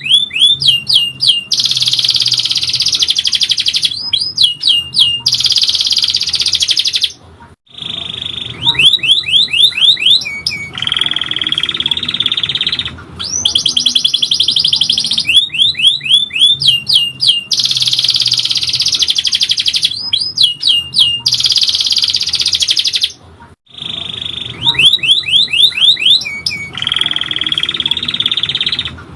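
Domestic canary singing loudly: long rolling trills alternate with runs of quick rising whistled notes, broken by two brief pauses. The same song passage repeats about every 16 seconds, as in a looped tutor recording.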